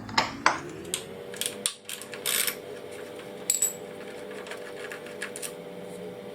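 Irregular metallic clinks and taps of hand tools on a scooter's rear fender bolt as a 5 mm hex key works it loose. Under them runs a steady background hum that rises in pitch about a second in.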